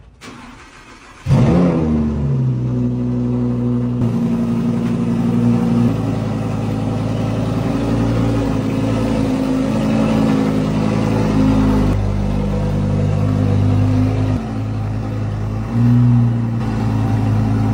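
Lamborghini Huracán Evo Spyder's V10 starting about a second in with a brief rev flare that falls back, then running steadily at low revs as the car is moved, with a short louder rise near the end.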